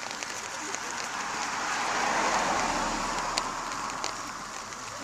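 A car driving past, its tyre and road noise swelling to a peak about halfway through and then fading away.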